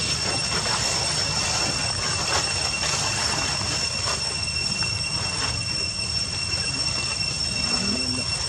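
Steady high-pitched drone of cicadas, two unbroken tones over a hiss, with a low rumble beneath. It cuts off suddenly at the very end.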